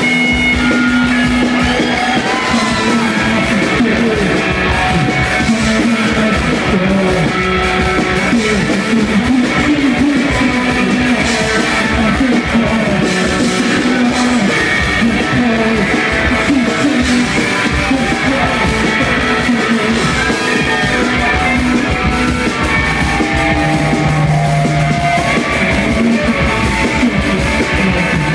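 Live noise-rock band playing loud electric guitars over a drum kit in a dense, unbroken wall of sound.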